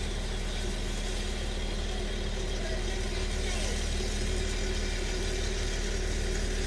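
Steady low engine hum, as of a motor idling, with a couple of faint short squeaks about halfway through.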